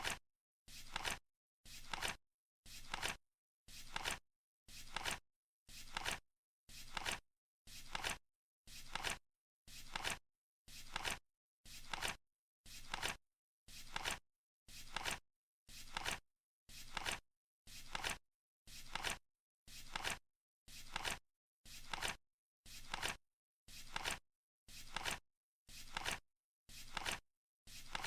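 Flip clock's cards flipping over once a second, each a brief rustling flutter that ends in a sharp clack, as the countdown ticks on.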